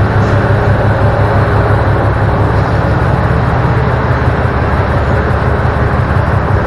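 Truck engine idling: a steady low hum that holds even throughout.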